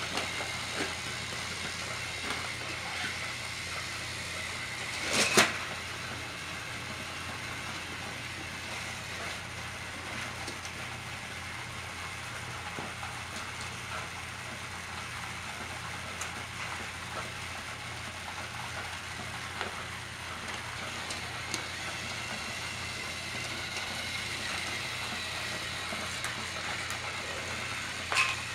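Battery-powered Trackmaster toy trains running on plastic track: a steady whirr of the small motors and wheels. A sharp clack comes about five seconds in, and another near the end.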